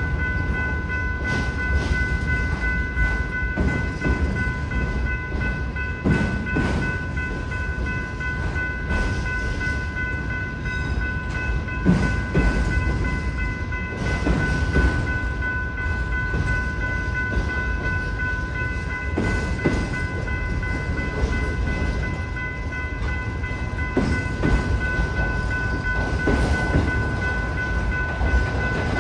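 BNSF autorack freight train's cars rolling through a grade crossing, a steady rumble with irregular clacks of wheels over the rail joints. A steady high ringing tone runs throughout.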